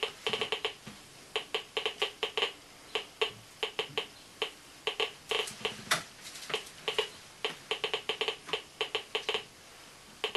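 Beta scintillation counter's loudspeaker clicking at random, uneven intervals, several clicks a second, each click a particle counted from the radioactive dust on a vehicle air filter under the detector head.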